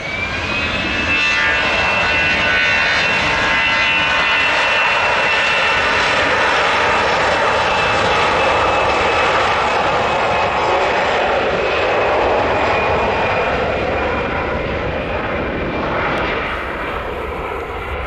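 Airbus A320's twin jet engines spooling up to takeoff thrust: a rising whine levels off about a second in. A loud, steady roar with a high fan tone follows as the airliner accelerates down the runway, easing slightly near the end as it rotates.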